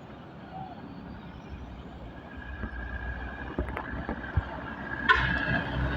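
Vehicle traffic rumbling past, with scattered knocks. A thin steady high tone joins about two seconds in, and the noise grows louder about five seconds in.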